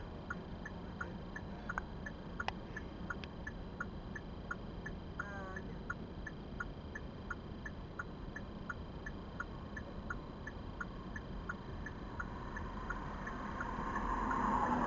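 A car's turn-signal indicator clicking steadily, about three clicks a second, over a low steady hum inside the cabin. A rushing noise swells near the end.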